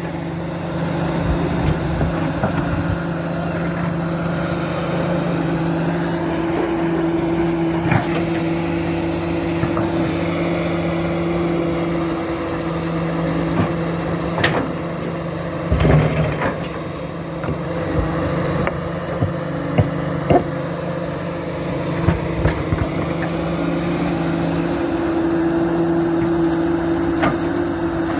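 Komatsu PC400 excavator's diesel engine running steadily under working load, its pitch holding while its level shifts. Several sharp knocks are spread through it, about five in all.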